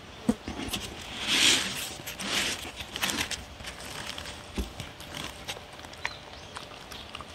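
A dog eating chopped vegetables and meat from a paper plate: a run of crunching and quick mouth clicks as it chews, busiest in the first three seconds.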